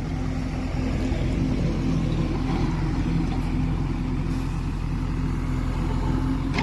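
JCB 3DX backhoe loader's diesel engine running steadily while the backhoe arm lifts and swings a bucket of soil.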